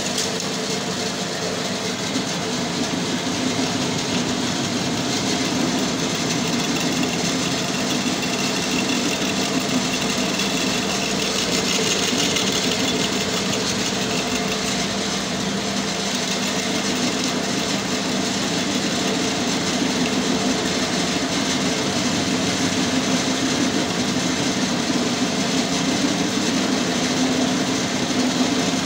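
Metal lathe running steadily while a single-point tool turns and faces the end of an electric motor's rotor shaft that has been built up with weld. It makes a steady hum with a continuous hiss.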